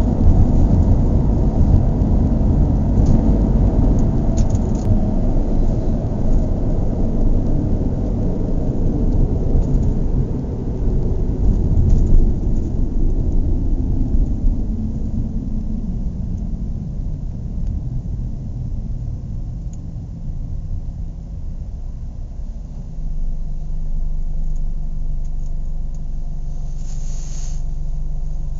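Car engine running with a loud rumble; its revs fall away about halfway through and it settles into a steady idle for the last few seconds. A brief hiss comes near the end.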